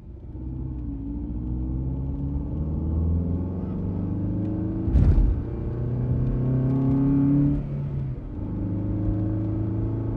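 Small wheeled robot built on a robot-vacuum base driving along a plywood track. Its drive motors run with a steady whir that rises and falls in pitch as it steers through the curves, over a rumble of the wheels on the wood. There is one sharp knock about five seconds in.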